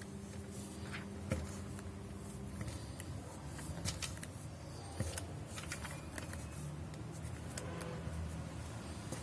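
Paper being handled: irregular crisp rustles and small crackles, over a faint low hum.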